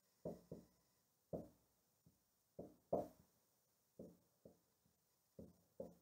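Dry-erase marker writing on a whiteboard: about a dozen faint, short strokes at irregular intervals.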